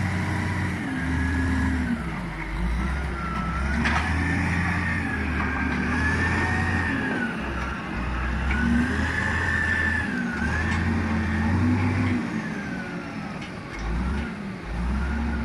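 Heavy diesel engine revving up and easing off again and again, every two to three seconds. A single knock comes about four seconds in.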